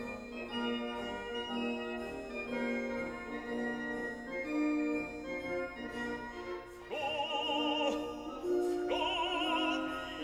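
Background music: a sustained organ-like keyboard accompaniment, with a singer coming in about seven seconds in on long held notes with wide vibrato, in an operatic style.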